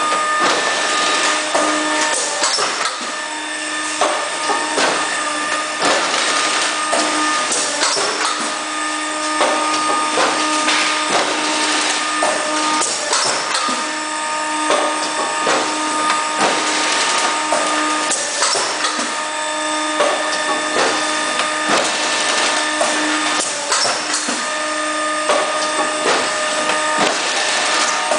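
Cake-box label-applying machine running: a steady mechanical hum with frequent sharp clacks from the moving parts.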